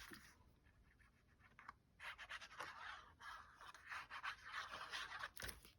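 Glue being rubbed onto the back of a piece of card: faint, irregular scratchy rubbing of an applicator on paper that begins about two seconds in.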